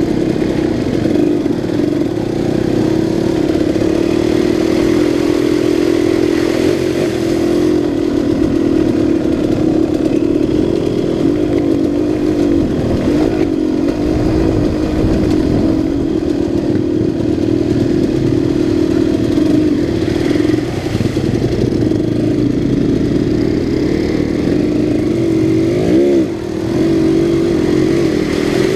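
Single-cylinder two-stroke engine of a 2006 KTM 200 XC-W dirt bike running under way at a fairly steady pitch, with a couple of quick blips of the throttle up and down near the end.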